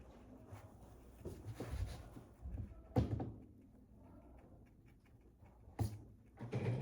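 Soft rustling and handling noises with two sharp knocks, one about three seconds in and one near six seconds.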